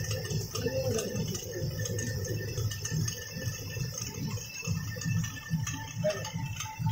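Traditional Ladakhi stone mill (ranthaq) grinding grain into flour: the upper millstone turning on the lower, a steady low grinding rumble with fast irregular knocking.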